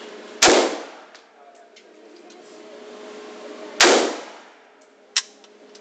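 Two single rifle shots from an AK-47, firing 7.62×39 mm rounds, about three and a half seconds apart, each with a short echo, followed near the end by a smaller sharp click.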